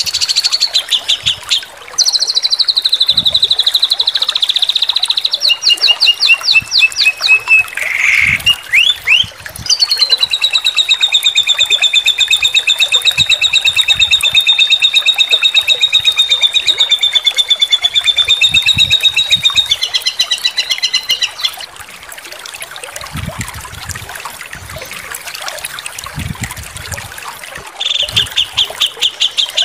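Recorded songbird song used as masteran (song-tutoring audio for competition songbirds): rapid strings of sharp, high repeated notes, then a long, high trill that pulses very fast for about ten seconds in the middle. After a quieter stretch, the rapid repeated notes return near the end.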